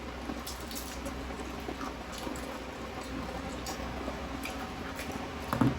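People eating crispy pata (deep-fried pork knuckle): faint chewing and small scattered clicks of eating. A brief louder sound comes near the end.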